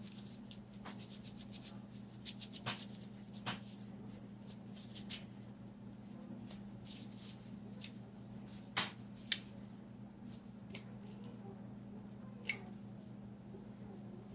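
Wet wipe rubbing over the plastic main-brush housing of a Roborock S5 Max robot vacuum, with scattered light plastic clicks and taps from handling it. A faint steady low hum runs underneath.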